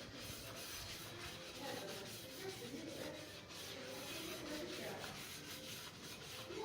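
Rough rubbing strokes repeated irregularly, a few a second, like sandpaper scrubbing over a surface.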